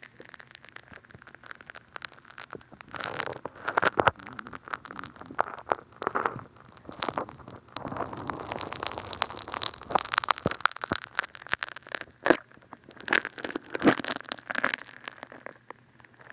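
Funny Foam bath soap squished and rubbed over a binaural dummy-head microphone's ear, making dense irregular crackling and squelching clicks. Quieter for the first few seconds, busiest from about three seconds in until near the end.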